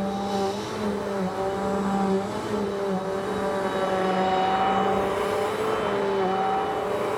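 Vacuum cleaner motor running steadily with a humming tone, its pitch dipping briefly every so often as the load on it changes.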